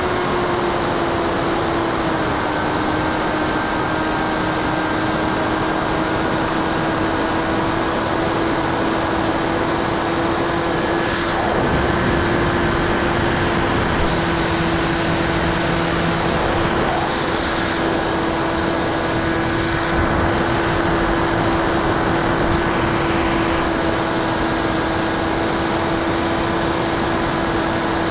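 Electric brushless motor and 9x6 propeller of a Bixler 2 RC plane running at steady cruise power in flight, heard from a camera on the airframe. It gives a constant whine over a rush of air, and the pitch dips slightly about two seconds in.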